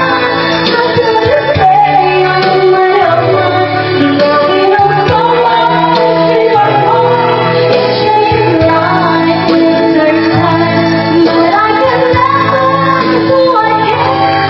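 A woman singing into a handheld microphone over backing music, with long held notes. The caption puts her voice down to the effect of a vocal cord nodule.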